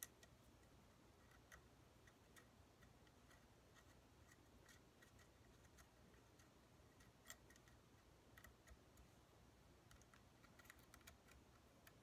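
Near silence with faint, scattered small clicks of metal scope ring caps and screws being handled and fitted by hand. One click about seven seconds in is a little louder than the rest.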